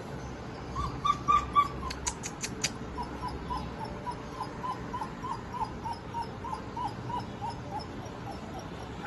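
German Shepherd puppies whimpering: a few high cries about a second in, then a long run of short, evenly spaced whines, about three a second, with some sharp clicks about two seconds in.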